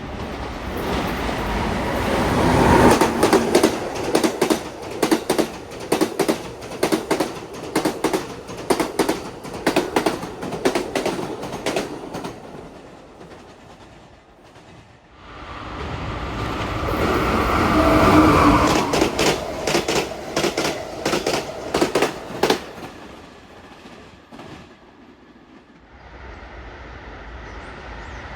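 Passenger train passing at speed, its wheels clacking rapidly over rail joints. The sound swells twice, with a short lull about halfway through.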